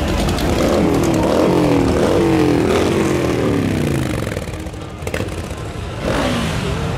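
Motorcycle engines revving and winding down, several falling in pitch together over the first few seconds, then easing off before picking up again near the end. Music plays along with them.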